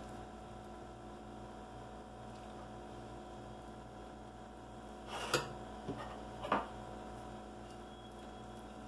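Spoon and knife working a thick cream cheese filling onto a tortilla on a ceramic plate: three short knocks and squishes a little past the middle, over a steady low electrical hum.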